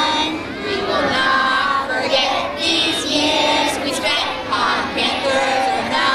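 A group of children singing a school song together, led by a woman's voice, with sustained sung notes.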